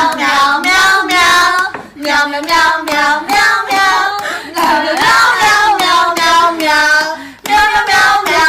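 A high-pitched voice singing or vocalizing in a string of short phrases that slide up and down in pitch.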